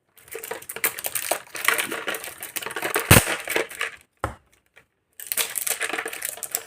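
Brain Blasters sour-candy wrapper being crinkled and pulled at in a struggle to open it, a dense crackling rustle with small clicks. There is one sharp knock about three seconds in, and the rustling breaks off briefly after four seconds.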